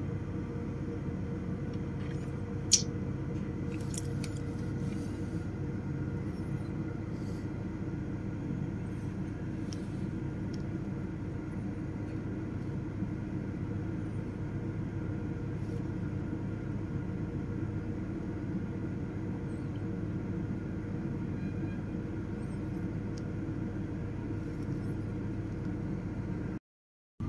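Steady low engine rumble with a constant hum, with one sharp click about three seconds in; the sound cuts out for a moment near the end.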